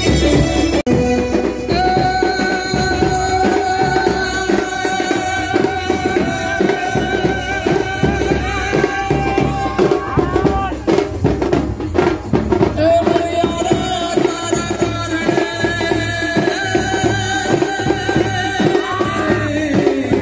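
Loud amplified folk music with singing and long held melodic notes over a steady drum beat, played through a truck-mounted horn loudspeaker system.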